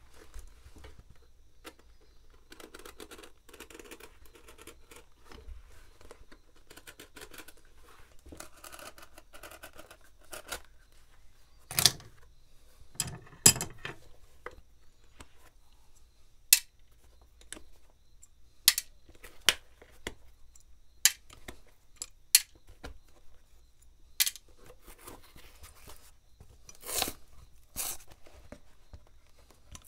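Hand work on a shoe heel being dismantled at a repair bench: rustling and scraping, then about a dozen sharp, irregularly spaced clicks and taps of tools and small heel nails, the loudest a little under halfway in.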